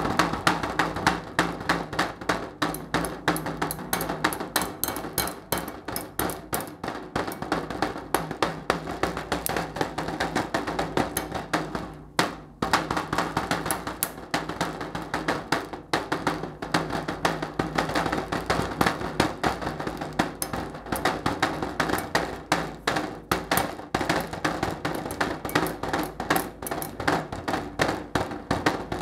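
Two plastic spoons drummed like drumsticks: a fast, uneven stream of hard clicking taps, with a short pause about twelve seconds in.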